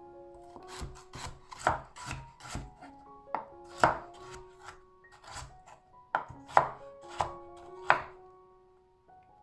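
Knife chopping food on a cutting board: a dozen or so irregular cuts, several of them sharp and loud, over soft background music.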